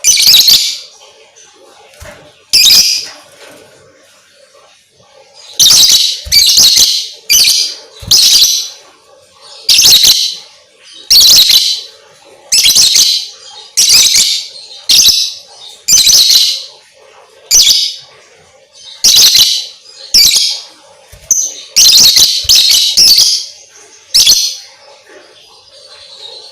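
Lovebird giving loud, shrill chirping calls in short bursts, roughly one a second, with a pause of a couple of seconds early on. The calls stop near the end.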